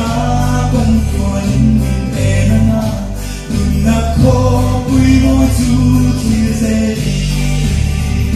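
A man singing solo into a handheld microphone over amplified backing music, with a steady bass line that changes note every half second or so.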